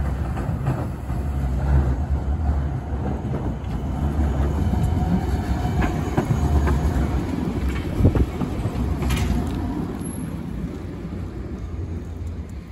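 Tram passing close by, its wheels rumbling and clicking on the rails. The sound is loudest about eight seconds in and eases off near the end.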